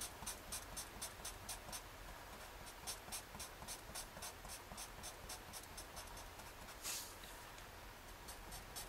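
Felt-tip permanent marker scratching back and forth on paper in quick, even strokes, about four a second, as a small area is shaded solid black. One longer, louder stroke comes about seven seconds in.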